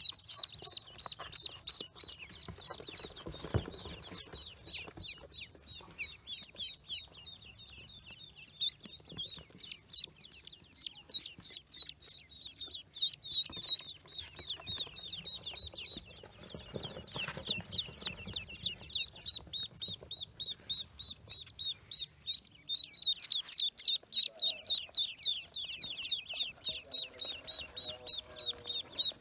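Pekin ducklings peeping: a rapid, continuous run of short, high, downward-slurred peeps from several chicks, easing off briefly a few times before picking up again.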